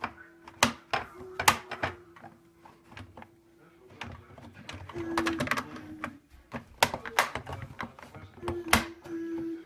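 Sharp plastic clicks and knocks as the dishwasher's inner parts are fitted back into place, irregular and scattered, several of them loud. A steady held tone runs underneath at times, strongest about five seconds in and near the end.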